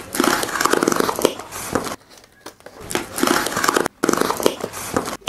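Small knife blade slitting plastic packing tape along a cardboard box's seams, a crackling, tearing rasp in three strokes, the first the longest.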